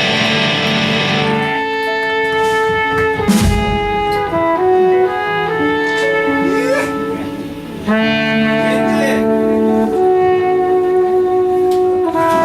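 Live rock band music: slow, held instrument notes changing every second or so, with one sharp drum hit about three seconds in.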